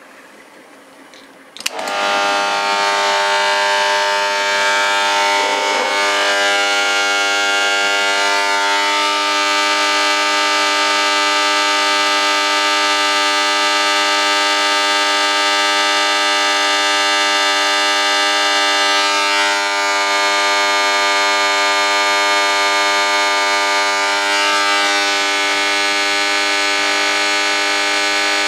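A click about two seconds in, then a loud, steady electrical buzz with many overtones as high-current AC is switched through a ball-bearing motor's shaft and bearings.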